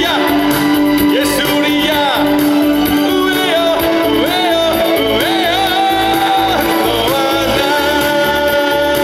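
A male singer sings a song live into a handheld microphone, amplified over music accompaniment with a steady, even beat. Several notes are held long in the middle.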